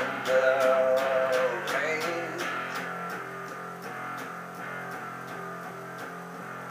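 Electric guitar strummed in a steady rhythm, about three strokes a second, under a man's voice holding a sung note for the first second or so.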